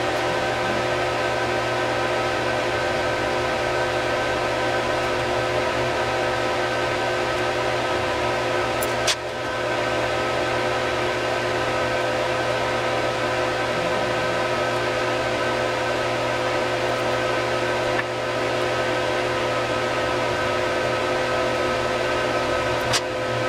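Steady fan whir from a soldering/rework station, carrying a hum of several steady tones. Brief clicks come about nine seconds in and again near the end.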